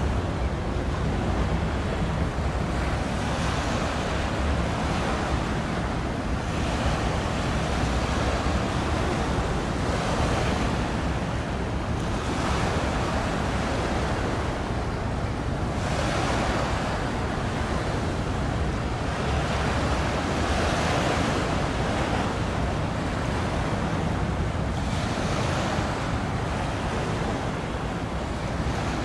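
Sea waves washing in surges every few seconds over a steady low rumble, with wind buffeting the microphone.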